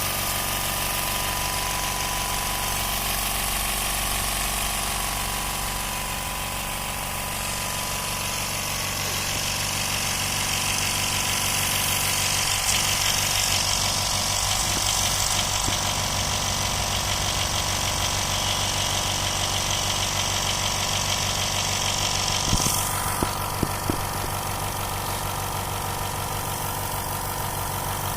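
Dental air compressor running steadily while filling its 30-litre tank: a motor hum with a hiss of air. The hiss changes about a quarter of the way in and again near the end, where a few short clicks come.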